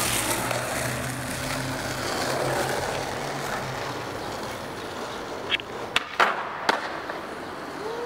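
Skateboard wheels rolling on asphalt, followed by a few sharp clacks near the end as the board is popped and lands.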